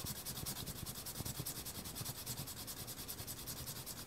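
Hand sanding of a short strip of plastic zip tie: sandpaper rubbing in quick, even back-and-forth strokes, about four to five a second, roughening the strip so glue will bond to it.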